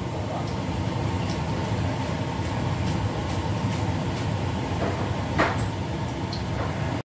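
Steady low mechanical drone in a home kitchen, with a single metal clink about five seconds in as a wire mesh strainer of fried tempe is set down into a steel bowl.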